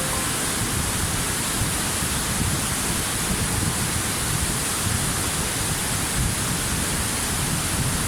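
Steady, even rushing water noise, with no clear rhythm or events.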